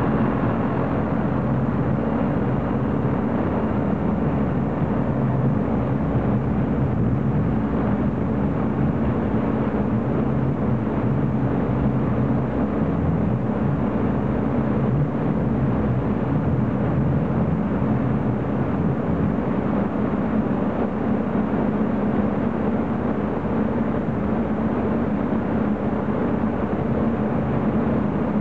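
Sevtec Scout Twin hovercraft's engine and propeller running steadily at constant speed while it travels across water and thin ice.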